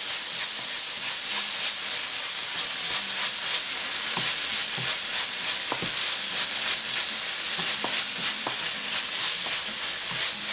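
Onion, tomato and chili-paste masala sizzling steadily in hot oil in a pan while it is stirred with a wooden spoon, which now and then scrapes and taps against the pan.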